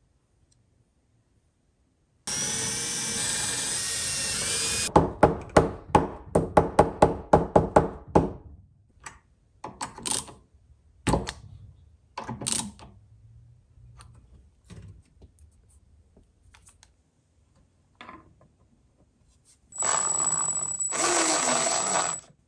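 A small cordless power driver runs steadily driving a screw, followed by a quick series of about a dozen sharp clicks and then scattered knocks and taps of metal hardware. Near the end the driver runs again and slows as the screw seats.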